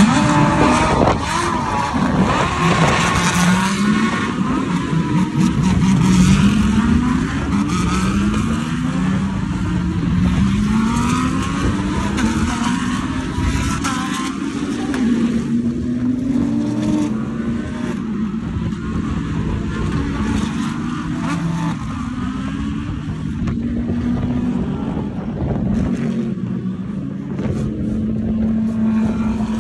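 GT3 race car engines pulling away one after another on a formation lap, each revving up through the gears with a rising note. In the last few seconds the sound settles into a steadier engine drone.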